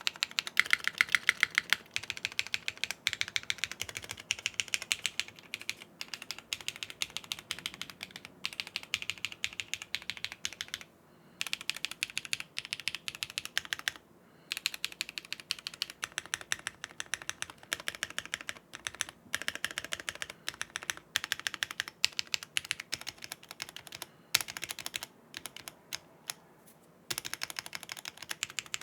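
Fast typing on a Geonworks W1-AT mechanical keyboard, built plateless on a flexible 1.2 mm PCB with thin foam beneath, fitted with factory-lubed BSUN BCP linear switches and GMK Gregory keycaps. Rapid, dense keystrokes, with brief pauses about 11, 14, 24 and 27 seconds in.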